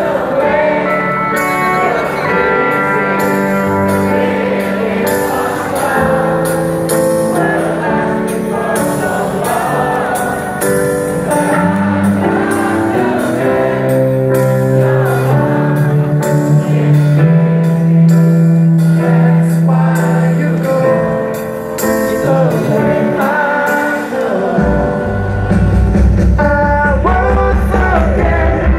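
Live pop-rock band playing on stage, keyboard, guitars and drums with sustained singing over them, heard from the crowd. The heavy bass end drops away briefly and then kicks back in strongly near the end.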